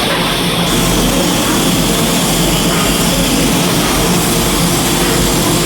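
Stick (SMAW) welding arc crackling and hissing steadily, with a faint electrical hum underneath.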